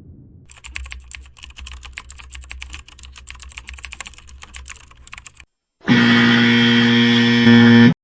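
Rapid computer keyboard typing, a dense run of key clicks lasting about five seconds. After a short gap comes a loud, steady, rich tone, the loudest sound here, which gets a little louder near the end and cuts off suddenly.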